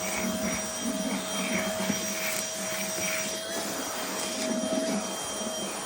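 Tounee cordless handheld vacuum cleaner running steadily: a constant motor whine over the rush of air.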